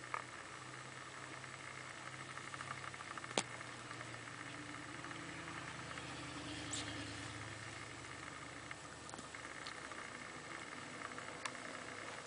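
Faint rustling and scratching of a cat's claws catching in bed covers as it rolls about, with a few sharp clicks. A low steady hum runs underneath.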